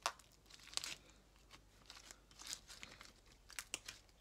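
Crunchy slime with foam beads mixed in being squeezed and stretched by hand, giving irregular crackles and pops.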